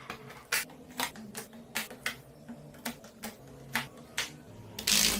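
Small magnetic balls clicking sharply against each other as they snap into place, about two or three clicks a second, over faint background music. A louder rushing rattle comes in near the end.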